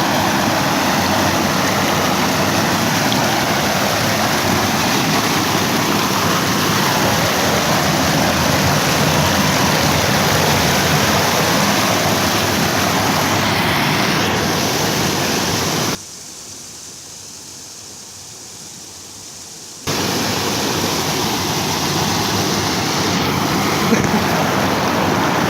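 Steady loud rush of flowing water. It cuts abruptly to a much quieter hiss for about four seconds past the middle, then returns at full strength.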